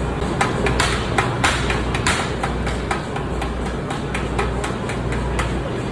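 Hammer striking metal, about a dozen sharp strikes at an uneven pace of roughly two a second, louder in the first couple of seconds. A steady low machinery hum runs underneath.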